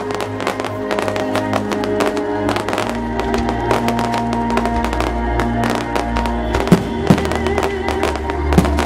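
Fireworks crackling densely under sustained music, with a few sharp bangs about seven seconds in and again near the end.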